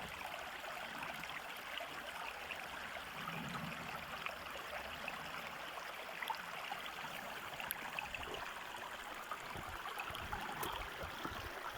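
Small stream running, a steady babble of water, with some faint low rumbling in the last couple of seconds.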